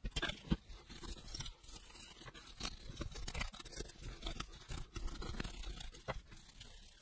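Faint, irregular scrubbing and scratching as a small circuit board of tactile push-button switches is cleaned with isopropyl alcohol, to free buttons that no longer respond. A few sharp light clicks are scattered through it.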